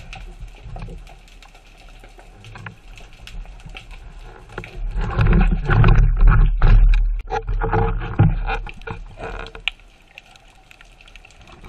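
Underwater camera-housing audio of water sloshing and bubbling as a freediver at the surface handles a speared octopus, with faint clicks at first and a loud stretch of irregular churning lasting about four seconds in the middle.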